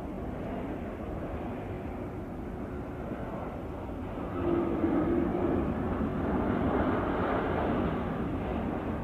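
Distant jet airliner's engines during its landing roll, a steady rushing noise that grows louder about four and a half seconds in.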